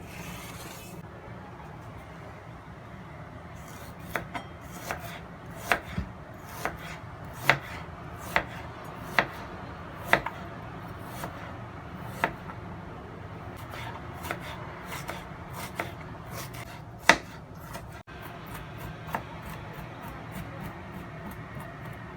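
Knife chopping on a cutting board: sharp, irregular strokes about one a second, starting about four seconds in, over a steady low hum.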